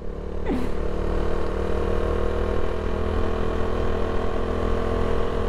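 Motorcycle engine running at a steady cruising speed while riding, its note holding even, over a low rumble.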